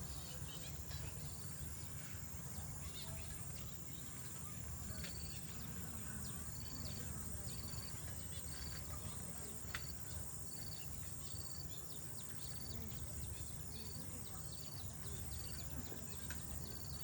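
Outdoor ambience: a steady high insect drone, with a short high chirp repeating about once a second, over a low rumble.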